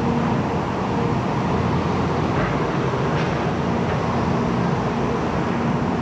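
Steady mechanical hum of a parked Shinkansen car's air-conditioning running, a constant whirring drone with a few faint held tones.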